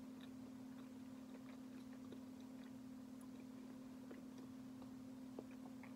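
Faint chewing of a mouthful of peanut butter cup, with small scattered clicks over a steady low hum.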